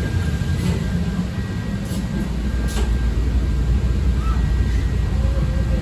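CTA 5000-series 'L' rapid transit car heard from inside as it pulls away from the station: a steady low rumble of wheels and running gear, with a few sharp clicks in the first three seconds.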